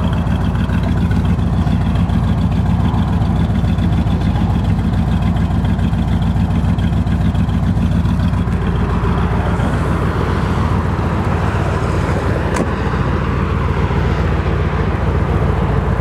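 1970 Chevrolet Corvette's 350 V8 idling steadily through its side pipes. A single sharp click about three-quarters of the way through.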